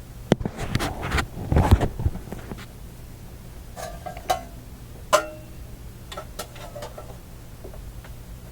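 Knocks and thumps of a heavy Philco radio chassis being shifted and set down on a workbench shelf: a dense cluster of sharp knocks in the first two seconds, then a few scattered clicks and taps, over a steady low hum.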